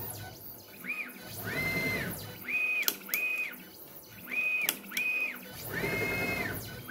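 Stepper motors of a Onefinity CNC pen plotter whining through a run of quick rapid moves while it changes pens at its magazine. Each move is a tone that rises, holds and falls, about seven in all; two of them are longer and lower, with more rumble under them. A couple of sharp clicks fall between moves.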